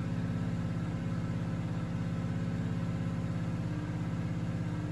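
Honda EX1000 suitcase generator's small engine running steadily while powering an 800 W oil-filled radiator, which is more than its 750 VA rating.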